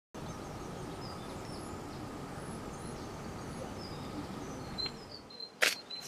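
Outdoor ambience: a steady low background noise with faint, brief bird chirps scattered through it. Near the end the noise drops away and there is one short, sharp sound.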